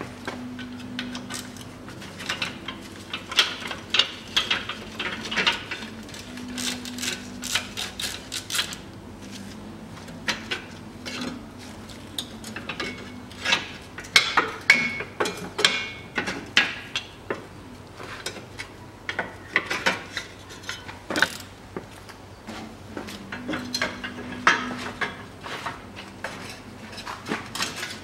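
Hand ratchet wrench clicking in spurts as bolts are undone on a steel underbody brace, with clinks of metal as tools and parts are handled.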